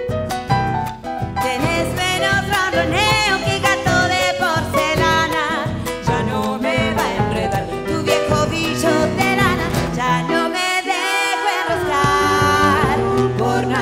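Live folk band playing an instrumental passage between verses: acoustic guitars, keyboard and drums, with wordless vocal lines over it. The bass and drums drop out for about a second, some ten seconds in, then come back.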